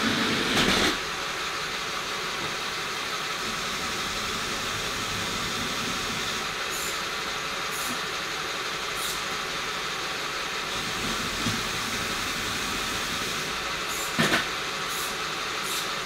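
Lego pneumatic container crane at work: a steady hiss, broken by short sharp hisses of air several times, the loudest about 14 seconds in.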